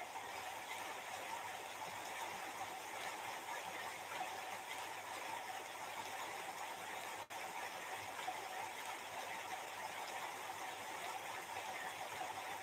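Steady low background hiss of room noise, with a momentary dropout about seven seconds in.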